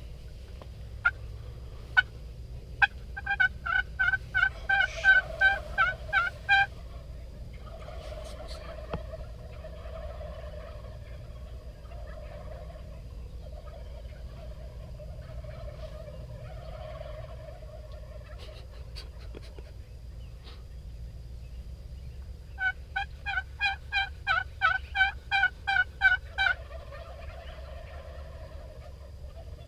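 Turkey yelping: two long series of evenly spaced yelps, about three a second, one near the start and one about 23 seconds in, each growing louder toward its end.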